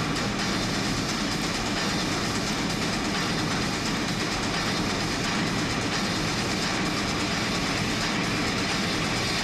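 A large audience applauding steadily in a big arena: a dense, even wash of clapping noise that holds at one level.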